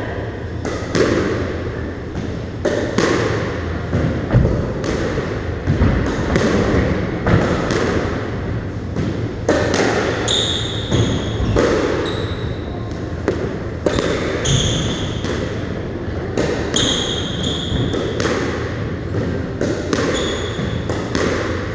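Squash rally: a squash ball struck by rackets and smacking off the court walls and floor again and again, each hit a sharp crack. From about ten seconds in, short high squeaks of court shoes on the wooden floor come between the hits.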